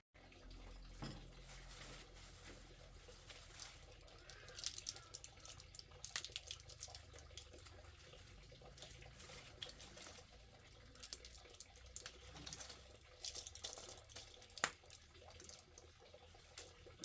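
Faint water sounds, splashing and dripping, with scattered light clicks and knocks and one sharper knock near the end.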